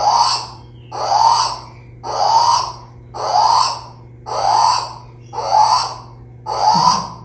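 A turaco giving its loud, harsh call over and over, seven calls about a second apart, each rising slightly in pitch.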